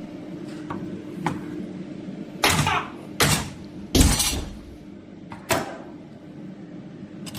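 Thin welded stainless steel sheet being forced in a violent strength test: four loud, short metallic bangs and crunches in the middle stretch, with a few lighter clicks around them.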